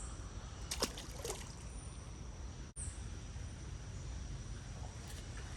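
Small creek's water running steadily, with a few faint clicks about a second in.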